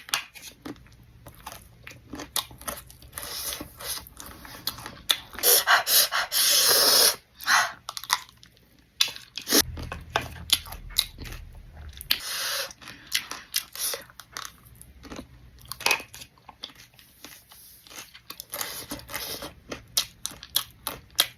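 Close-up chewing and crunching of a crunchy snack: irregular bites and crunches throughout, with a loud spell of dense crunching a little past a quarter of the way in.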